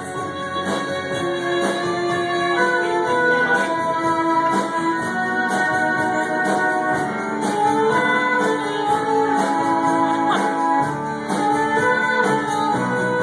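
Live band playing a song, with guitars among the instruments and regular drum-like beats.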